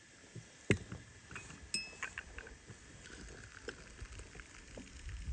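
Light clinks and knocks of dishes and cutlery, with a sharp knock about three quarters of a second in and a brief ringing ping a second later.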